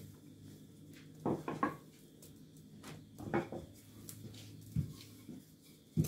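Wooden rolling pin rolling out roti dough on a floured countertop, with a few short knocks and bumps as it is pushed and lifted.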